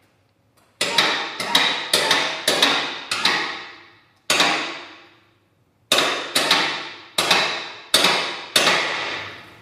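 Motorized wall-mounted bike lift raising its carriage loaded with two bikes, giving a series of sharp metallic clanks at uneven intervals, each ringing out, with a pause of over a second partway through.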